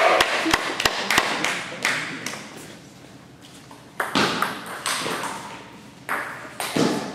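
Table tennis ball bouncing: a run of quick, sharp clicks in the first second or so. It is followed by quieter hall noise, with louder bursts of noise about four seconds in and again near the end.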